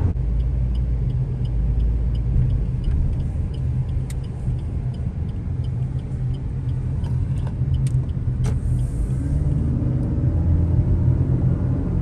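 Car driving on the road, heard from inside the cabin: steady engine and tyre rumble. A light regular ticking runs at about three a second and fades after roughly eight seconds. The engine note rises slightly about two-thirds of the way through.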